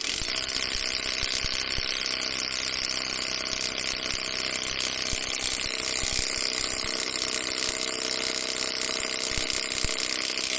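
20-volt cordless 3/8-inch impact wrench hammering steadily without a break on a lug nut torqued to 130 foot-pounds, through a 7/8-inch chrome socket on the anvil. It starts abruptly. The long run of hammering shows the small gun straining to break the tight nut loose.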